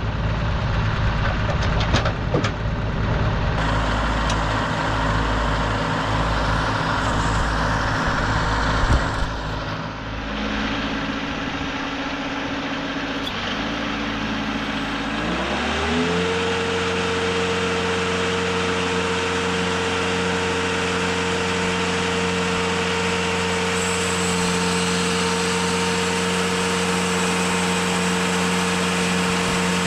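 TimberKing 2520 portable sawmill engine running steadily at low speed, with a few clunks near the start. About halfway through it is throttled up in a smooth rise to a higher, steady speed.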